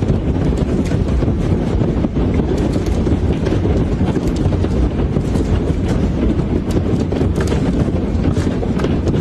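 Heavy hailstorm: a steady roar of falling hail with many sharp hits of hailstones striking hard surfaces, and wind buffeting the microphone.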